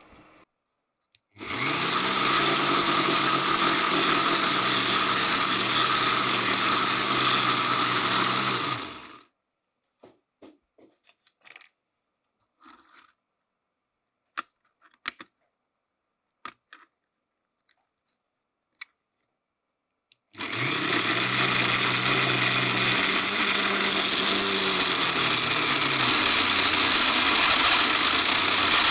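Ozito rotary tool driving a 3D-printed mini table saw: it spins up, runs for about eight seconds and winds down. After a pause with a few clicks and taps, it starts again and runs as a wooden strip is fed to the blade, its hum dropping in pitch partway through.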